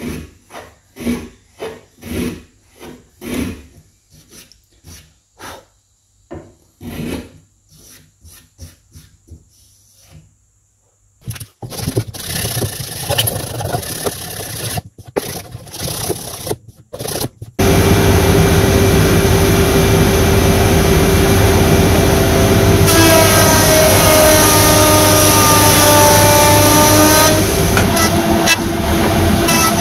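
Hand plane shaving a hardwood board in repeated short strokes, followed by hand rasping or paring on the board's end. At about 17 seconds a jointer starts and runs loud and steady with a held whine, cutting as a board is fed over it.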